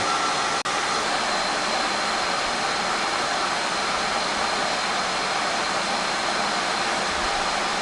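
Cooling fans of an external SAS disk array enclosure running flat out: a steady, loud jet-like rush of air with a thin, steady high whine.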